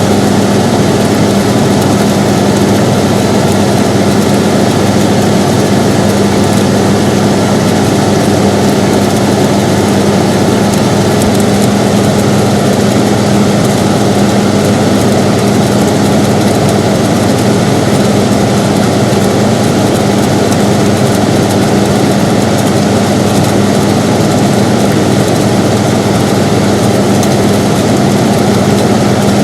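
Air conditioner running steadily: an even rush of noise over a constant low hum, unchanging throughout.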